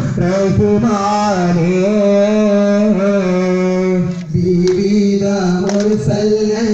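A man singing a slow, drawn-out devotional melody with long bending notes, the song of a duff (daf) performance. A few sharp frame-drum strikes come near the end.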